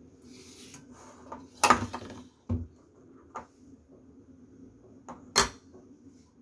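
Stainless steel plates being moved and set down on a kitchen counter: a few sharp knocks, the loudest about a second and a half in and another about five seconds in, with a duller thump in between.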